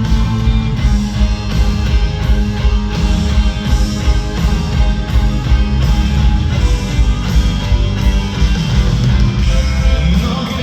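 Rock music with electric guitar, bass and drums at a steady beat. The bass drops out briefly near the end.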